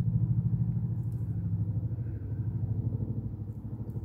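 A steady low mechanical hum, pulsing rapidly, with a few faint light clicks of a beaded necklace and its metal clasp being handled about a second in and near the end.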